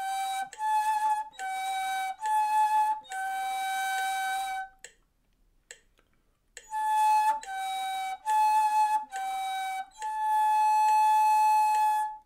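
Ney, the end-blown cane flute, playing a slow exercise with a lot of breath noise in the tone: four short notes alternating between two neighbouring pitches, then a held note. After a pause of about two seconds the figure comes again reversed, ending on the higher held note.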